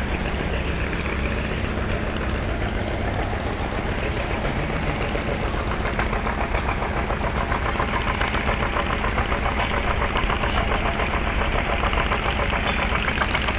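Klotok boat's single-cylinder diesel engine running steadily with a rapid, even knocking beat, which grows more prominent about six seconds in.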